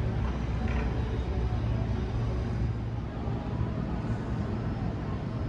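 Steady low rumble of railway station background noise, with no distinct event standing out.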